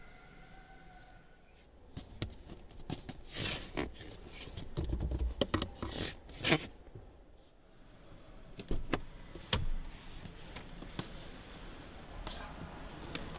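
Scattered clicks, knocks and rustles of handling noise from someone shifting about in a pickup truck's driver's seat with a handheld camera, over a faint steady background hum. The loudest knock comes about six and a half seconds in.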